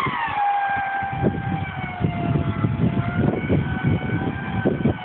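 A stuck 4x4 running hard in deep water. A high mechanical whine drops in pitch in the first half-second and then holds steady over a rough low rumble.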